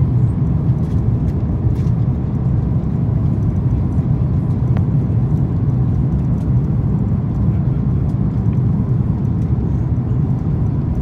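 Steady low rumble of cabin noise inside an Airbus A340-300 airliner on approach to landing, the sound of its engines and the airflow over the extended flaps heard through the fuselage.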